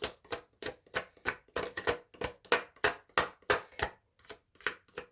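Tarot or oracle cards being handled: a quick run of sharp card snaps and taps, about four or five a second, pausing briefly near the end.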